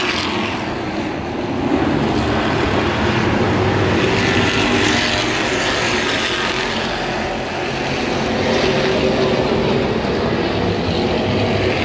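Spec late model stock cars racing past in a pack, several engines running together. The sound swells to its loudest about four to six seconds in as the cars pass close by, then eases as they head down the track.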